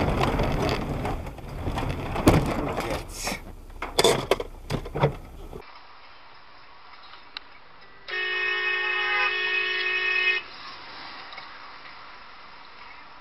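Loud rumbling road noise with several sharp bangs, which cuts off abruptly. About eight seconds in, a car horn gives one steady blast lasting about two seconds.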